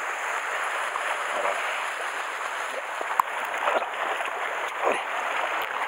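Sea water washing and splashing against shore rocks, a steady rushing wash, with a single sharp click a little after three seconds in.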